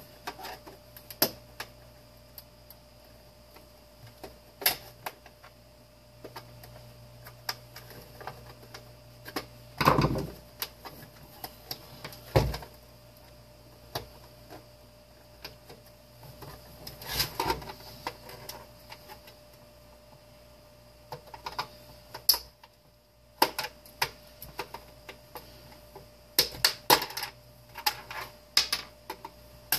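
Irregular clicks, knocks and clatter of a plastic space-heater housing being handled and pried at in an attempt to break it apart, with two heavier knocks about ten and twelve seconds in.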